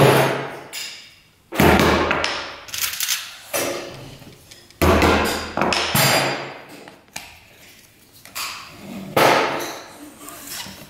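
A hammer driving nails into a wooden workbench to hold a lead-came glass panel in place: four sharp knocks a few seconds apart, each ringing briefly, with softer knocks in between.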